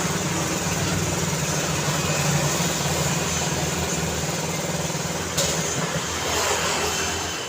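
Road traffic noise with a vehicle engine running close by, a steady low hum over the hiss of traffic. A single sharp click about five seconds in, and the engine sound eases off near the end.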